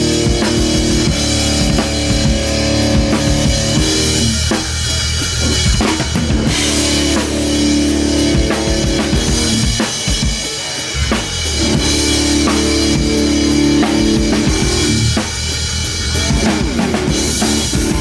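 A live rock band playing an instrumental passage, with the drum kit (bass drum and snare) loudest under sustained pitched chords. The playing thins out briefly three times.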